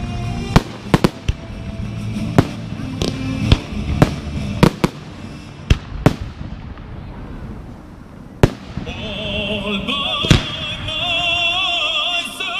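Fireworks shells bursting in a rapid series of sharp bangs over the show's accompanying music. The bangs come thick in the first half and thin out to a few single reports later, while a wavering melody swells in the music about nine seconds in.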